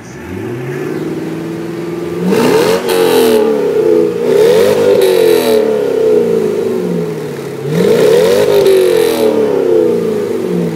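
Chevrolet C5 Corvette's 5.7-litre LS1 V8 free-revving through its quad-tip exhaust. It idles steadily, then is revved three times, each rev climbing sharply and falling away slowly back toward idle.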